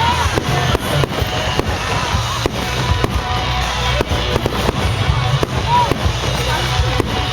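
Fireworks display: a rapid string of sharp bangs and crackles from bursting shells, several a second, over a continuous low rumble.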